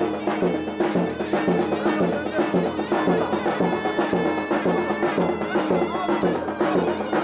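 Traditional folk music: a reed wind instrument playing a continuous melody over a drum beat.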